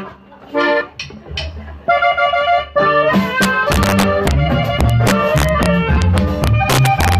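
Live norteño band starting a song: a few short chords, then about three seconds in the full band comes in with bass and drums at a steady beat.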